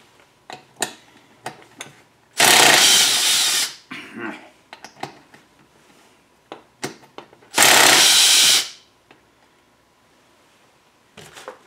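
Two short bursts of a power tool, each about a second long and several seconds apart, with small clicks of parts being handled in between.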